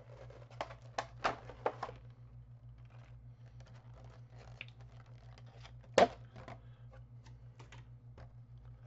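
Cardboard and plastic packaging of a Pokémon trading-card box being handled and unpacked: a quick run of clicks and crinkles in the first two seconds, faint scattered ticks after that, and one sharp click about six seconds in.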